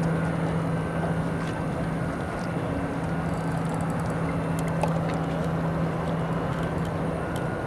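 Bass boat's motor humming steadily over wind and water noise.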